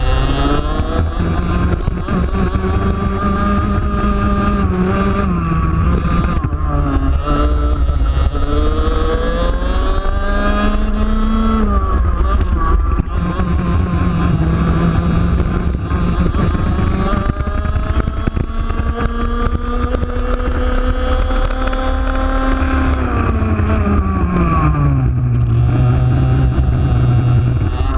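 Onboard sound of a 125cc two-stroke TaG racing kart engine at race pace, its pitch climbing on the straights and falling under braking into the corners, most sharply about twelve seconds in and again a few seconds before the end.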